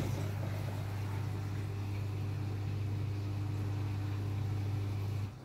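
Dishwasher running with a steady low hum, cutting off suddenly near the end.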